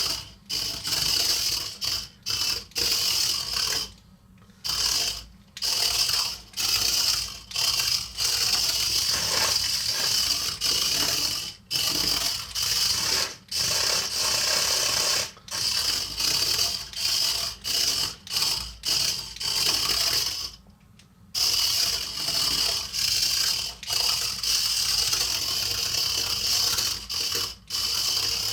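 Hexbug Fire Ant remote-control toy's small electric motors and gear-driven tracks whirring in short runs that start and stop abruptly, many times over, as it drives and spins in a circle.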